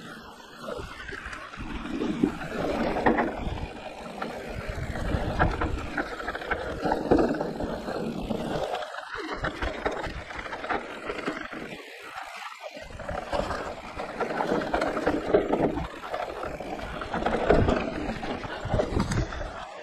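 Electric mountain bike ridden down a trail: wind buffeting the microphone over tyre rumble and rattling from the bike, swelling and fading unevenly, with two brief lulls partway through.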